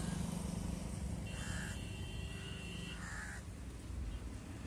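A crow cawing twice, about a second and a half in and again about three seconds in, over a low steady rumble.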